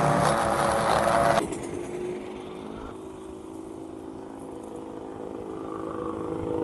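Engine-driven wood chipper shredding material, a loud grinding over the engine that cuts off suddenly about a second and a half in. The engine then runs on steadily with no load, its sound building slowly near the end.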